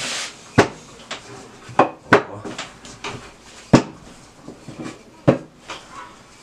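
Wooden rolling pin rolling out thin pizza dough on a wooden table, with sharp knocks at uneven intervals as the pin strikes the tabletop, and a brief rustle at the start.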